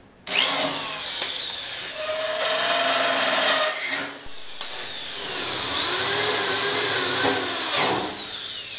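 Cordless drill driving screws to fasten a metal electrical box to a table saw's steel stand, in several short runs, its motor whine rising and falling as each screw goes in.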